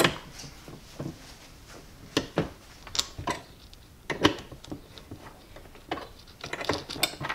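Scattered clicks, taps and light rattles of thick battery cables and their metal lugs being handled and fitted onto a power inverter's screw terminals, with a quicker run of clicks near the end.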